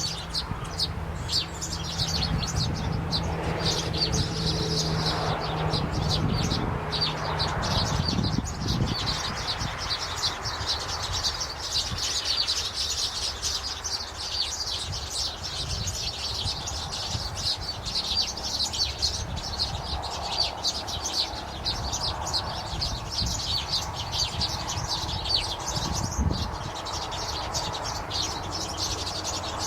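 Many small birds chirping continuously in a dense chorus of rapid high chirps. A low steady hum sits under it for the first several seconds.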